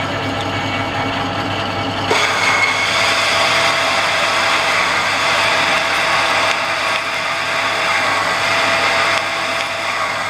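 Metal lathe at 280 RPM with a 32 mm spade drill boring into 1045 steel: a steady machine hum with cutting noise. About two seconds in, the cutting noise suddenly gets louder and higher, and it holds there.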